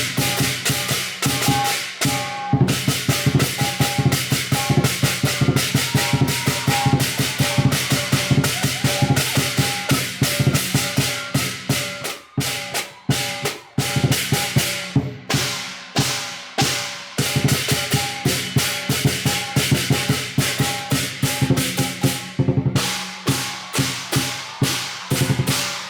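Chinese lion dance percussion: a drum beaten in a fast, driving rhythm with crashing cymbals and a ringing gong, with a few short breaks about halfway through.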